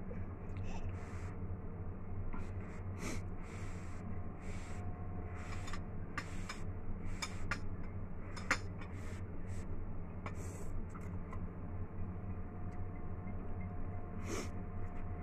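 A person slurping Shin Ramyun instant noodles with chopsticks: a string of short, sharp slurps and breaths between mouthfuls, over a steady low hum.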